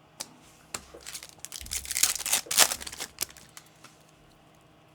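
Crinkling and rustling of trading-card packaging being handled, with a few light clicks in the first second and the loudest crinkling from about one and a half to three seconds in.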